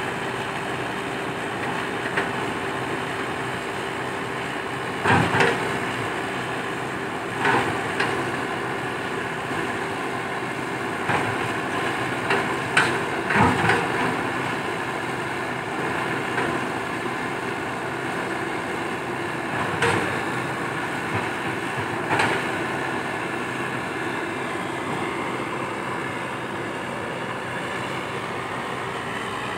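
Komatsu PC120-5 hydraulic excavator's diesel engine running steadily under work. Several short knocks are heard over it at irregular intervals as the machine operates.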